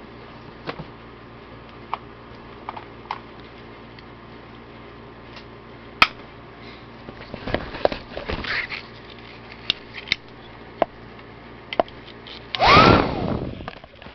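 Handling noises as a hair dryer and its cord are unpacked and plugged in: scattered plastic clicks and knocks, some rustling, and a louder brief scraping swish about a second before the end.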